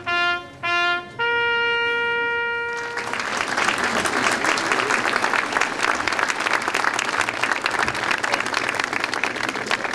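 A trumpet plays a few short notes and ends on one long held note, then a crowd breaks into applause about three seconds in, which continues to the end.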